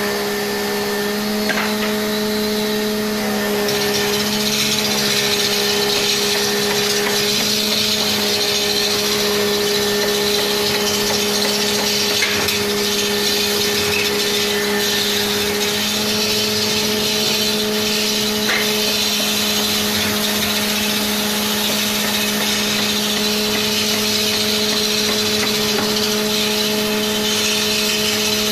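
Electric wood lathe running with its motor humming steadily while a hand-held cutting tool shaves a large spinning log, a continuous scraping hiss that grows stronger about four seconds in.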